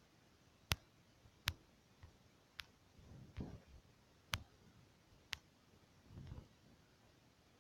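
A few sharp, faint clicks at irregular intervals, about five of them, with a couple of softer, duller thumps in between.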